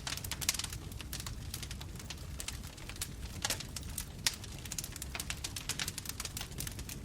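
Bonfire crackling: dense, irregular snaps and pops of burning wood over a low steady rumble of the flames, with a few louder pops.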